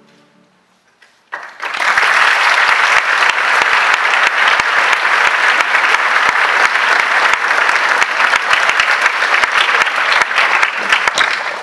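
Audience applauding: the clapping breaks out suddenly about a second in, holds steady and loud, then dies away near the end.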